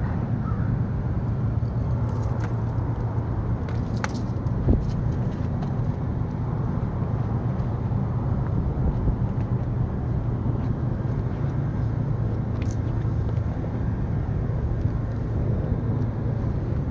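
Steady low mechanical hum and rumble, with a few faint clicks.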